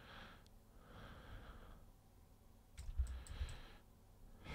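Faint breathing close to the microphone, three slow breaths, with a few computer mouse clicks around three seconds in.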